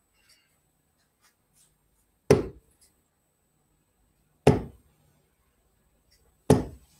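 Three steel-tip darts thudding one by one into a Winmau Blade bristle dartboard, about two seconds apart: a player throwing the first three darts of a new leg. Each hit is a short sharp knock with a brief decay, picked up by a webcam microphone in a small room.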